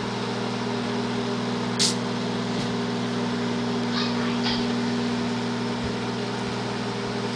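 Microwave oven running with a steady electrical hum, with one short sharp crackle about two seconds in.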